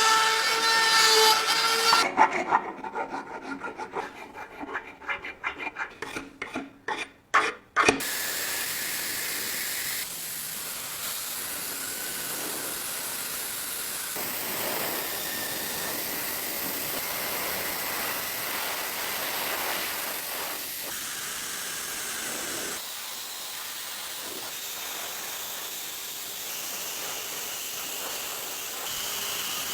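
Hand work on a model car body: a brief small-motor whine, then about six seconds of rhythmic rubbing strokes like filing or sanding, then a steady hiss.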